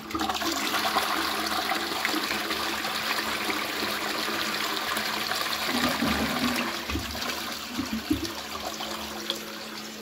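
A 6-litre Qualitas Versailles close-coupled toilet flushing through a Fluidmaster Pro dual-flush syphon. Water suddenly rushes into the pan and runs steadily, then gurgles irregularly from about six seconds in as the bowl drains, and fades near the end.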